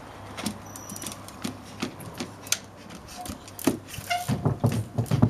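Trials bike hopping on its back wheel across wooden pallets and crates: irregular knocks and thumps of tyre and rim on wood, coming quicker and louder near the end.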